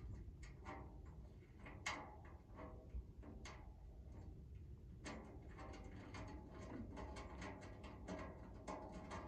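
Faint small clicks and taps of a locking bolt being screwed in by hand through the side of an RV under-step storage box. The clicks are sparse at first and come quicker and more often from about halfway through.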